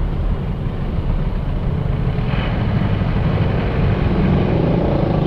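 A vehicle engine running close by: a steady low rumble that grows slightly louder toward the end.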